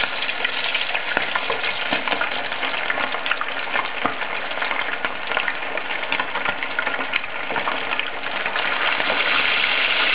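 Battered chicken drumsticks sizzling and crackling in a frying pan of sunflower oil kept only moderately hot for slow frying. The sizzle grows a little louder near the end as a third piece goes into the oil.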